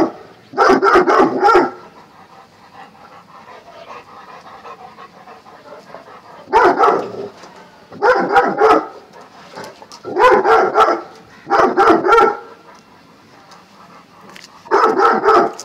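Bullmastiff barking in short volleys of several rapid barks each, about six volleys in all, with a few seconds' pause after the first.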